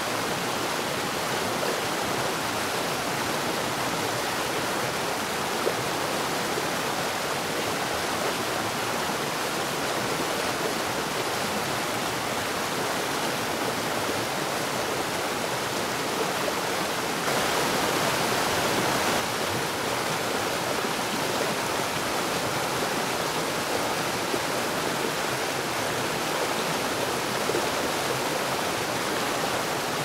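Waterfall: water pouring down a rock face in many streams, a steady full rushing hiss. It grows a little louder for about two seconds just past the middle.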